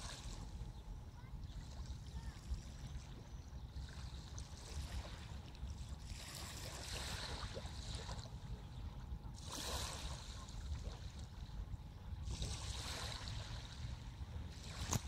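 Water sloshing and splashing in three washes a few seconds apart, over a steady low rumble.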